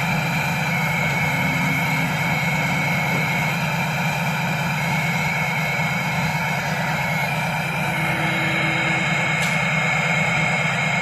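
Hino Mega truck's J08 six-cylinder diesel idling steadily, heard close to its four-pipe straight exhaust.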